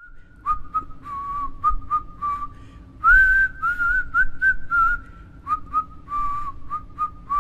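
A person whistling a tune in short notes, rising to a higher, louder phrase about three seconds in, then dropping back to the lower notes after a brief pause.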